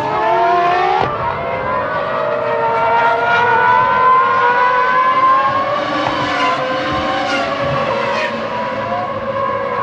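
Formula One car engine running at high revs, its pitch climbing steadily under acceleration and dropping sharply at gear changes several times.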